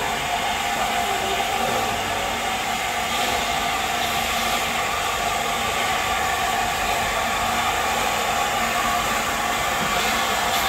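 Steam locomotive letting off steam in a steady, unbroken hiss that holds an even level throughout.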